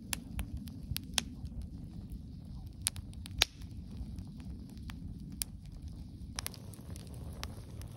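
Wood campfire crackling, with scattered sharp pops over a steady low rumble; the loudest pop comes about three and a half seconds in.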